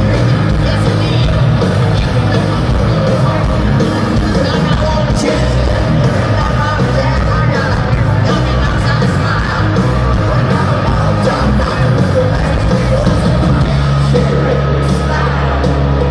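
Hard rock band playing live at stadium volume, electric guitars, bass and drums with a male lead vocal, heard from inside the crowd through a phone microphone. A low chord rings out steadily for about the last two seconds.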